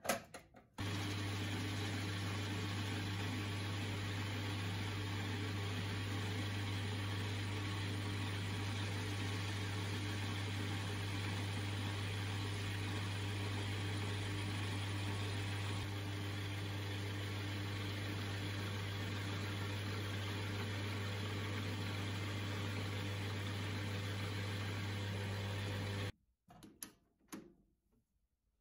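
Metal lathe running at a steady speed with its chuck spinning: a constant hum over an even mechanical whir, starting suddenly about a second in and cutting off suddenly a couple of seconds before the end, followed by a few light knocks.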